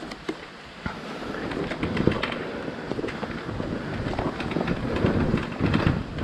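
KTM 690 enduro motorcycle's single-cylinder engine revving unevenly in surges while riding rough off-road trail, with stones and the bike clattering in short sharp knocks throughout.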